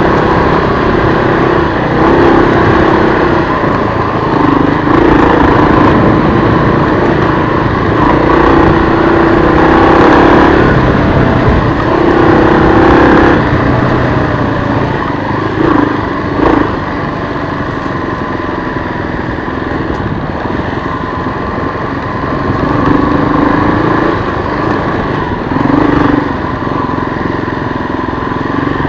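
Kawasaki KLR250 single-cylinder engine running under way, its pitch rising and falling as the throttle is opened and eased. It is louder through the first half and quieter and steadier from about halfway on.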